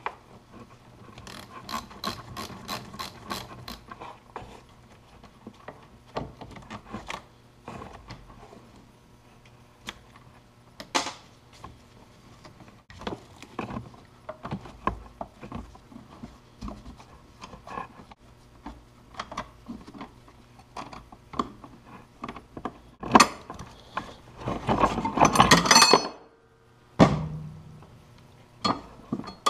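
Ratchet wrench clicking in quick runs, about four clicks a second, as the snowmobile battery's terminal bolts are undone, followed by scattered clinks and knocks of tools and parts as the battery comes out. A louder scraping clatter lasts a second or two near the end.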